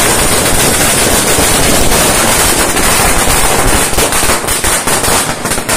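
Firecrackers bursting in a rapid, continuous crackle that thins into separate bangs near the end.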